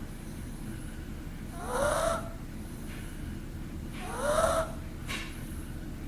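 A pug snoring in its sleep: two snores about two and a half seconds apart, each a short wheezy snore that rises in pitch.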